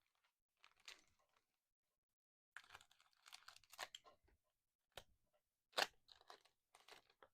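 Faint rustling and clicking of trading cards being handled and flipped through, in short scattered bursts with a couple of sharper clicks past the middle.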